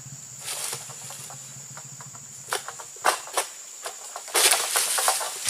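Egrek, a long-poled palm-harvesting sickle, cutting into an oil palm's frond and bunch stalks: several sharp snaps and cracks from about two and a half seconds in, then rustling of fronds growing louder near the end. A steady high insect drone runs behind.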